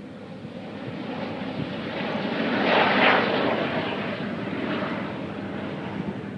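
Jet noise from an Airbus A380 in flight, its four Rolls-Royce Trent 900 turbofans swelling to their loudest about three seconds in, then fading as the airliner draws away.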